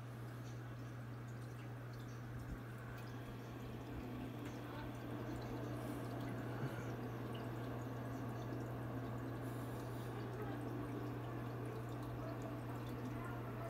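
Aquarium filter running: water trickling and dripping over a steady low hum.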